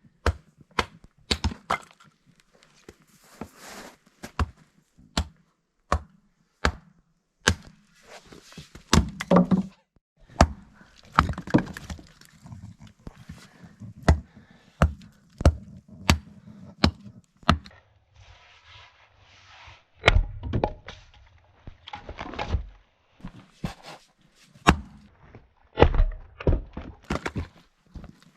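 Irregular wooden knocks, taps and thuds, one or two a second, with a few heavier thumps in the second half.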